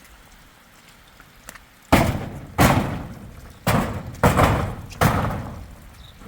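Five heavy thuds, irregularly spaced from about half a second to a second apart, each dying away quickly.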